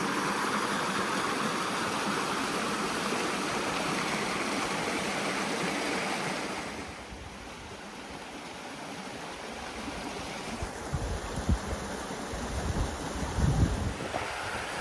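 Creek water rushing steadily over a small waterfall into a rock pool. About halfway through the rush drops quieter, and near the end a few low thumps come through.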